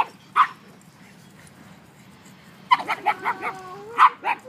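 Pug barking and whining: two sharp barks at the start, a quick run of yips about three seconds in over a whine that falls in pitch, then two more barks near the end leading into another long falling whine.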